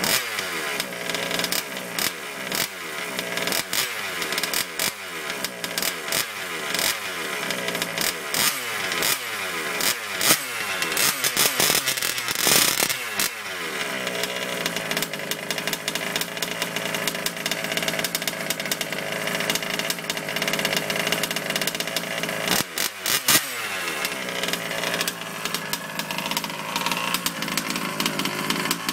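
HPI Baja SS RC buggy's two-stroke petrol engine (Pro MX 30) blipped over and over, about one and a half revs a second, each falling back. Near 13 s a bigger rev, then it settles to a steady idle, with two quick blips a little past the 20-second mark.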